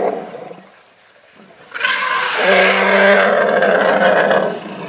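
Agitated African elephant trumpeting loudly twice. The first call dies away about half a second in, and after a short quiet a longer, harsher call starts about two seconds in and lasts over two seconds.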